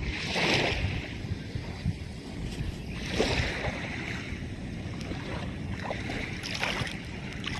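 Wind rumbling on the microphone, with small waves washing onto the shore in a few swells.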